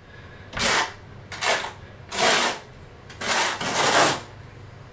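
Notched trowel scraping through wet thinset mortar, combing ridges into it: five short swishing strokes, roughly one a second.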